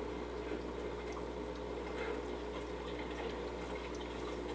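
Aquarium filter pump running: a steady trickle of moving water over a low, even hum, with a few faint clicks.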